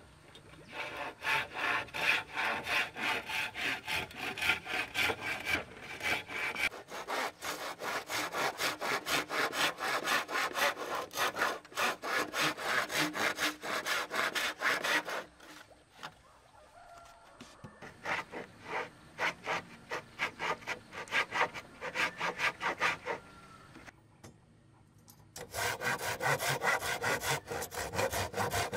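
Hand saw cutting through wood in quick, even back-and-forth strokes. Past the middle the sawing stops for a moment and comes back softer. It pauses briefly again, then comes back loud near the end.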